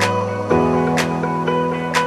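Intro music: held chords that change about half a second in, with a light percussive tick about once a second.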